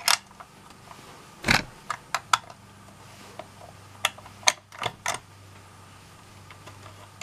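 Scattered metal clicks and clinks of a wrench turning out a bolt holding a Lionel ZW transformer's core, with a louder knock about a second and a half in and a run of clinks around four to five seconds, over a faint steady hum.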